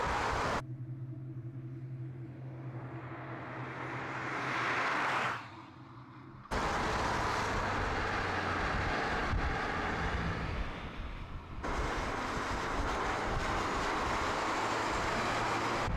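VW Golf R prototype's turbocharged four-cylinder engine driving at speed, with tyre and wind noise. It gives a steady engine drone that swells about five seconds in and drops off suddenly, then a denser rushing run of engine and road noise.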